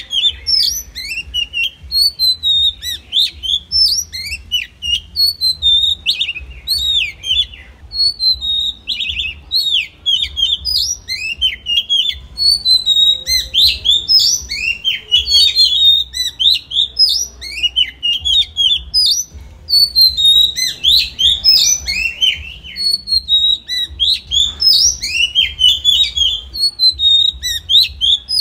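Oriental magpie-robin (chích chòe than) singing: a long run of varied song phrases made of quick sweeping whistles and rapid note clusters, each phrase a second or two long with short pauses between.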